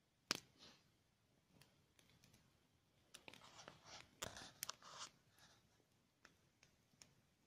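Small hatchet chopping at a thin sapling: one sharp knock just after the start, then a quick run of lighter cuts and crunches about three to five seconds in, all faint.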